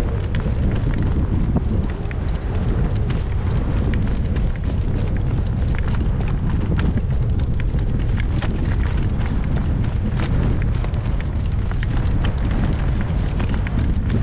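Strong wind buffeting the microphone in a steady low rumble, with scattered sharp clicks and knocks all through.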